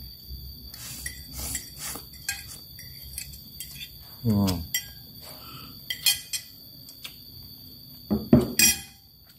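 Metal cutlery clinking and scraping on a ceramic plate as the last instant noodles are gathered, then a loud noodle slurp about four seconds in. Near the end comes a short, loud throat sound from the eater as he chews.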